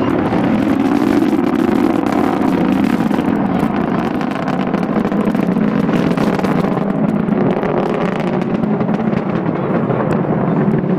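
Antares rocket's first stage, two AJ26 kerosene engines, heard from far off as a steady, loud rumble with a crackle running through it.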